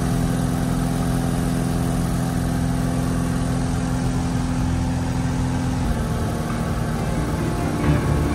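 Single-engine light aircraft's piston engine and propeller droning steadily, heard from inside the cockpit during the climb after takeoff. The drone's pitch shifts slightly about six seconds in.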